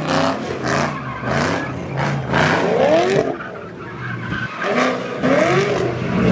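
A car engine revving hard while drifting: the revs climb and drop in surges, about two and a half seconds in and again near the end, with the tires skidding.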